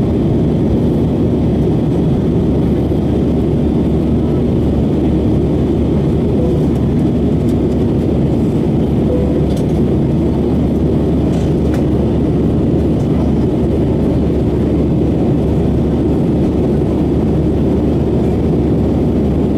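Steady roar of an Airbus A319's jet engines and rushing airflow, heard inside the cabin over the wing during the climb after takeoff.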